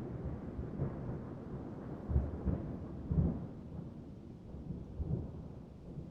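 Thunder rumbling and fading away, with several short low booms breaking through the rumble.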